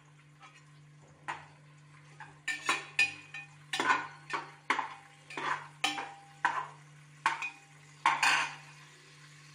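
Metal spoon stirring and scraping against the inside of an aluminium pressure cooker while onions and spices fry in oil: a quick run of scraping strokes that starts about a second in and stops near the end.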